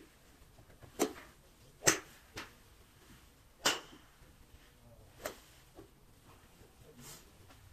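Sharp cracks of golf clubs striking golf balls, four clear strikes at uneven intervals with fainter clicks between.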